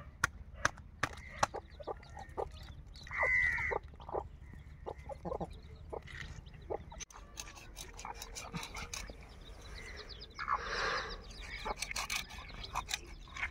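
Chickens clucking, with a short pitched call about three seconds in and a longer, harsher call around ten seconds in, amid scattered sharp clicks.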